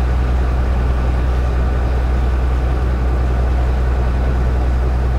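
Passenger ferry's engine running with a low, steady drone, heard from on board, with an even rushing hiss over it.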